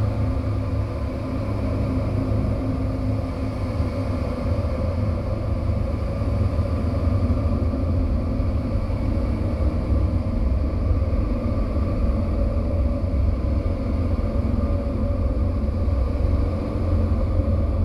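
Experimental music track: a steady, dense low rumbling drone with a few held tones above it, with no beat or melody.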